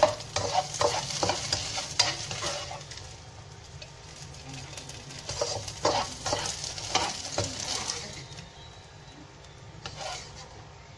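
A utensil scraping and knocking in a hot wok as fried mee and kuey teow are lifted out onto a plate, over a light sizzle of oil in the pan. The scrapes come in clusters in the first few seconds and again around the middle, then thin out near the end.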